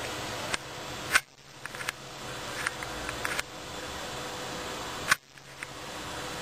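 Handheld camcorder noise: a steady hiss with scattered small clicks, and two sharp clicks about a second in and about five seconds in, each followed by a brief dip in level, from handling the camera and zooming it.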